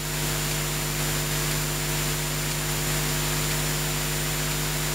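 Steady electrical hiss with a low mains hum and a faint thin high whine, unchanging throughout: line noise from an audio chain carrying no voice.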